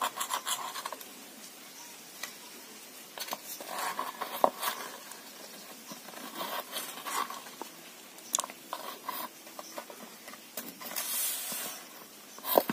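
Light kitchen handling sounds: scattered clicks and taps of utensils and dishes, with a brief scrape or rustle near the end.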